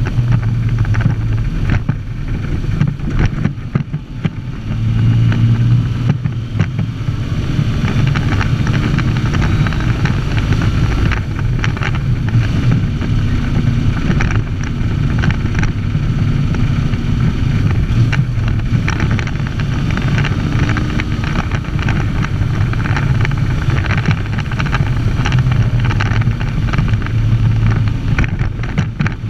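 Unimog 404 fire engine's petrol straight-six engine running under load while driving, heard inside the cab, with the cab rattling. The engine note dips briefly about four seconds in, then picks up again.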